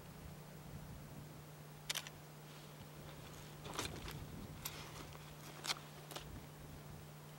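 Faint steady low hum from the camcorder, with about five sharp little clicks scattered through it.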